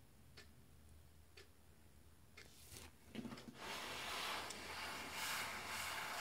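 Faint ticks about once a second, then about three seconds in a louder rubbing, rustling handling noise starts and keeps going.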